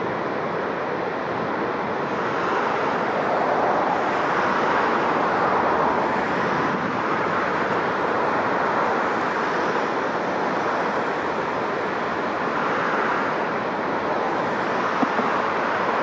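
Heavy surf breaking on a sandy beach in strong wind: a steady rushing roar that swells and eases slowly as the waves come in.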